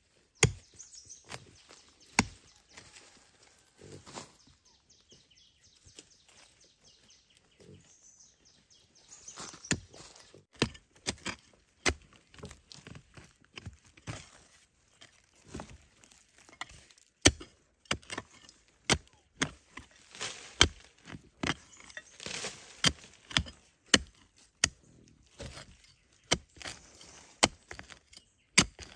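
A small hand hoe chopping and scraping into clay soil to dig out a bamboo shoot: irregular sharp strikes and the crumble of loosened earth, with a quieter lull about five seconds in.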